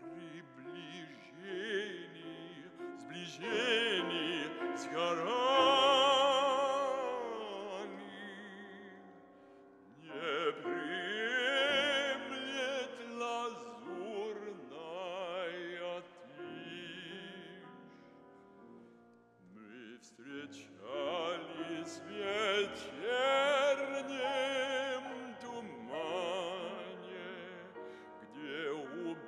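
Classical singer with a strong vibrato singing an art song in three long phrases, with piano accompaniment.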